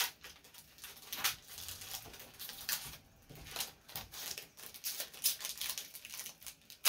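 Foil booster-pack wrappers and Pokémon trading cards being handled, crinkling and rustling in short, irregular crackles.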